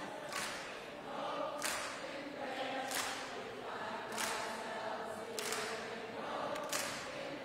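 A large crowd of protesters singing together in unison, repeating a short phrase over and over, with a hissing consonant in it about once every second and a quarter.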